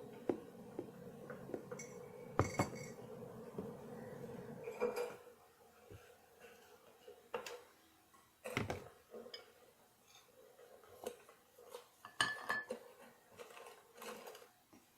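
Dishes and cutlery being handled in a kitchen: scattered clinks and knocks of crockery, glass and metal utensils, with a steady hum in the first few seconds that stops about five seconds in.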